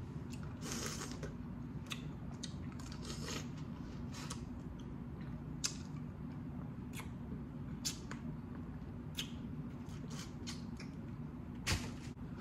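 Boiled crawfish shells cracking and snapping as they are twisted apart and peeled by hand, a scatter of small crackles with a louder snap near the end, over a steady low hum.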